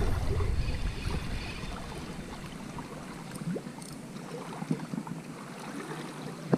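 Calm sea lapping against the rocks, with light wind on the microphone and a few faint scattered clicks.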